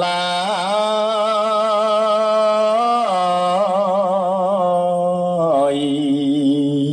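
Khmer smot: a Buddhist monk's solo male voice chanting a long, drawn-out melismatic line, holding each note with a wide vibrato. The pitch steps down about three seconds in and again about five and a half seconds in.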